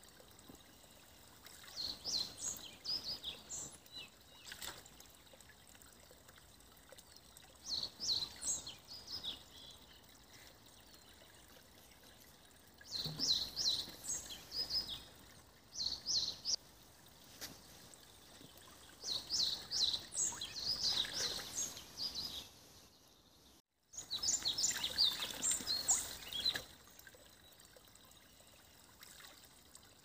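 Songbirds singing short phrases of quick high notes every few seconds over the faint steady murmur of a small forest stream. The sound cuts out for a moment about three quarters of the way through.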